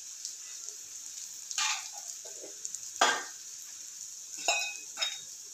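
Shallots, garlic and chillies sizzling steadily in hot coconut oil in an iron kadai, with a steel spoon stirring and scraping the pan a few times.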